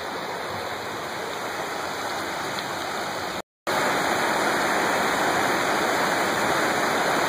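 Steady rush of water from a rocky mountain river tumbling over boulders and shallow rapids. The sound cuts out completely for a moment a little past three seconds in, then returns louder and closer.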